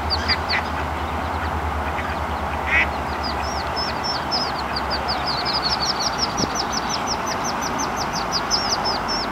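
Ducklings peeping: short, high, falling peeps, a few at first and then a rapid, continuous run of several a second from about three seconds in. There is one lower, louder call near the three-second mark, over a steady background hiss.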